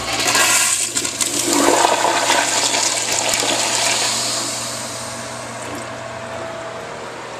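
Crane Hymont toilet flushing through a flushometer valve: a loud rush of water into the bowl, strongest for the first four seconds, then trailing off by about five seconds in.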